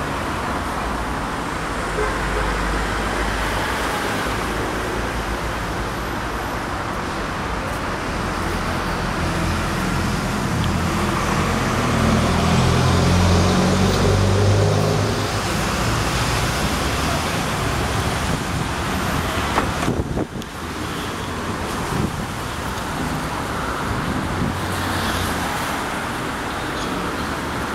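Steady road traffic noise with a deep rumble that swells in the middle, and a sharp click about twenty seconds in.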